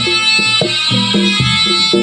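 Javanese traditional instrumental music for a jaranan performance: struck pitched notes on a steady beat about twice a second, under a sustained high melody.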